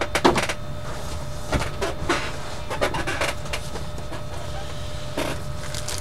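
Scattered short rustles and light knocks of things being handled, over a low steady hum.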